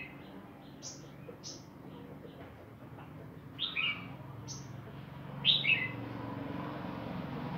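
Sunbird chirping: a few thin, very high single chirps, and twice a louder two-note chirp that steps down in pitch, the second near the middle and the third later on.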